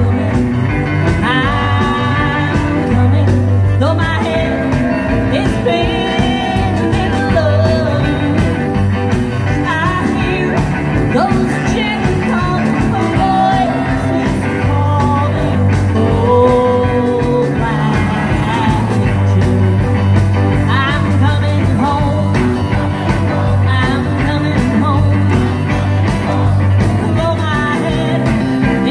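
Live rockabilly band playing with a steady beat: keyboard piano, upright bass, electric guitar, drums and saxophone.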